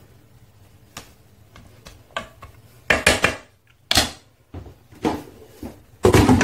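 A wooden spoon knocking against the metal inner pot of an electric multicooker, with faint clicks at first and sharp clatters about three and four seconds in. Near the end comes a louder clatter as the cooker's lid is fitted on.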